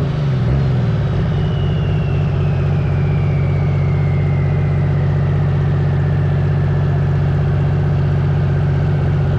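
Turbocharged Cummins diesel in a Dodge Ram pickup idling steadily just after a full pull. A high whine glides slowly down in pitch from about a second in as the turbo spools down.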